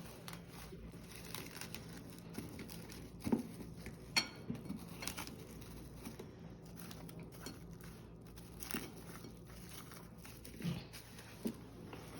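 Kitchen handling noises: scattered light knocks and clicks, a few seconds apart, over a steady low hum.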